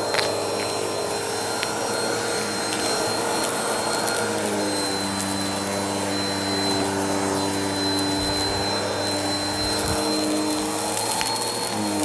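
Bissell vacuum cleaner running steadily with a high motor whine. About four seconds in, the lower tones of its hum shift in pitch.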